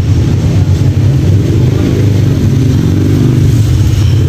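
Steady low drone of a running motor vehicle engine.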